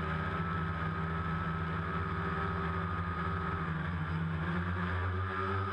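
DJI Phantom quadcopter's four electric motors and propellers whining steadily, heard from the GoPro mounted on the drone. About four seconds in, the pitch shifts and wavers as the drone comes down low near its pilot.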